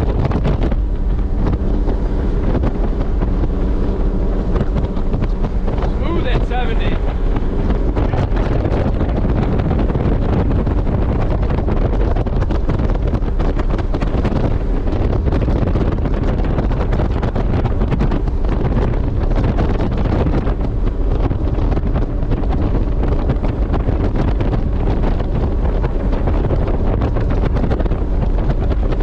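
Fountain 35 Lightning powerboat's twin engines running steadily at about 70 mph, with heavy wind noise on the microphone.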